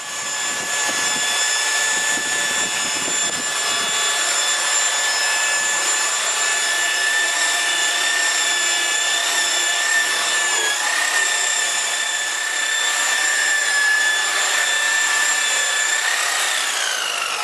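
Electric paint polisher (buffer) running at steady high speed with a high whine as it buffs scratches out of motorcycle paint. Near the end its whine starts to fall as the machine slows down.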